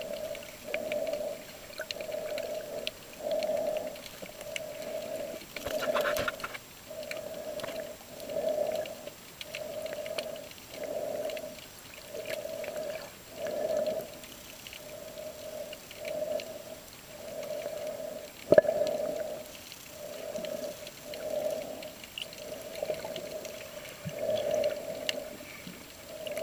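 Underwater sound picked up by a submerged camera: a hum that swells and fades about once a second, with faint scattered clicks and one sharp knock a little past the middle.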